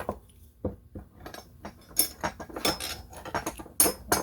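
Delrin hand-grip arms, screws and camera-mount parts clinking and knocking as they are handled and fitted together: a run of sharp taps and clicks, loudest about two seconds in and again near the end.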